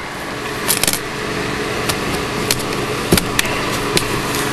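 A few sharp clicks and snaps, spread a second or so apart, of cutters working at a thick plastic zip tie on the packing, over a steady background hum.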